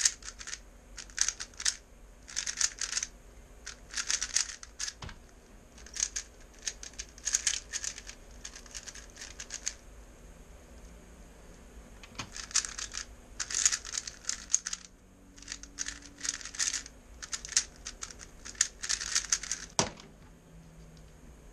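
A 3x3 speedcube's layers being turned fast by hand: runs of rapid clicking and rattling, with short pauses between runs of turns. A single knock near the end as the timer on the keyboard is stopped.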